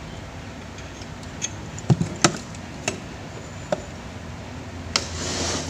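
Handling clatter of dismantled electric fan motor parts: about five separate sharp clicks and knocks as the plastic and metal housing, wires and rotor are moved and set down on the bench, with a short rustling scrape near the end.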